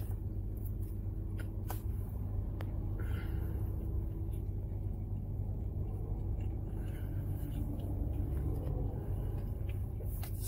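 Steady low rumble heard inside a car cabin, typical of the car idling, with a few faint soft clicks scattered through it.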